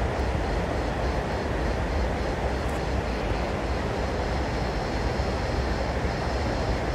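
Steady, even rumbling background noise with no distinct events, strongest at the low end.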